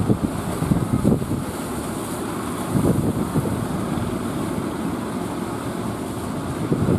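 Wind gusting on the microphone over the steady wash of rough sea surf. The stronger gusts come about a second in, about three seconds in, and at the end.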